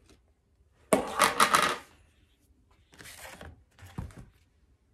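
A tub of lightweight spackle and other craft supplies being handled: a loud clattering rattle lasting about a second, then softer rustling and a couple of short knocks near the end.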